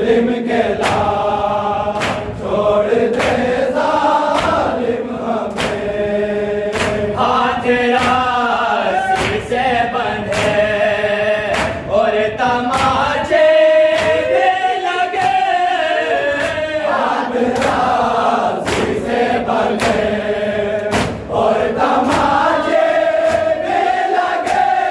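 A group of men chanting a Shia noha (mourning lament) in Urdu together. Sharp slaps of matam, palms striking chests, keep time about once a second.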